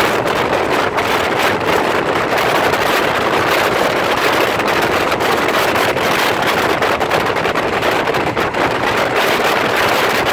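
Diesel railcar running at speed, a steady loud rush of wheel, engine and air noise, with wind buffeting the microphone.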